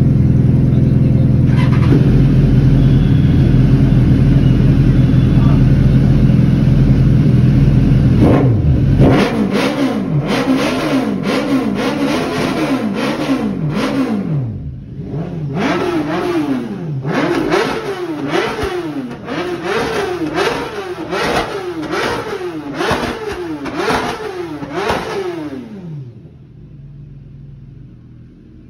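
Inline-four sportbike engine revved over and over in quick blips, roughly one a second, each a sharp rise and fall in pitch. The revving follows a loud steady low drone and stops a couple of seconds before the end.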